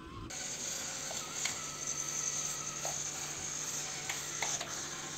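Small electric motor and gearbox of a homemade RC car running, a steady whir with a high hiss and scattered clicks.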